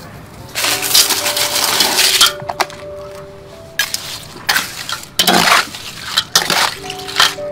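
Crushed ice clinking and scraping against a metal bowl as a metal spoon stirs it through cut fruit, basil seeds and sugar: a long rattling stretch about half a second in, then shorter scrapes and clinks in bursts.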